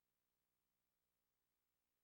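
Near silence: only a very faint, steady hiss.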